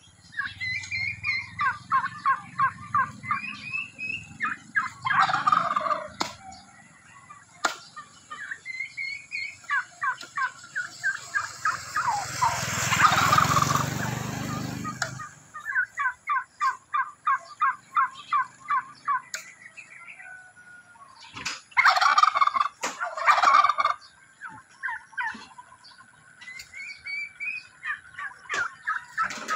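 Domestic tom turkeys gobbling over and over in fast rattling bouts, the loudest about five seconds in and again a little past twenty seconds. A broad rushing noise swells and fades in the middle.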